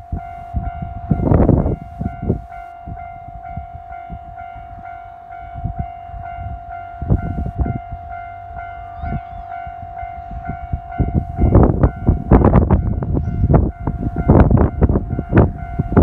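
Gusty wind buffeting the phone's microphone, loudest near the start and through the last few seconds. Under it a steady single-pitched tone holds and then stops about three-quarters of the way through.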